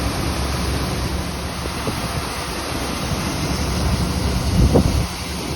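Tractor running while the grain cart's auger pours shelled corn into a straight truck: a steady rushing noise over a low engine rumble, with wind noise on the microphone. A brief louder rumble comes near the end.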